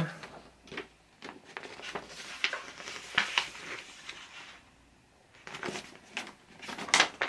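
Paper rustling and crinkling as a large folded poster is unfolded and shaken open by hand: a run of short rustles with a short lull about two-thirds of the way through.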